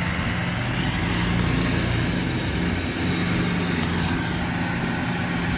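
Tractor engine running steadily under load, with a slight rise and fall in pitch.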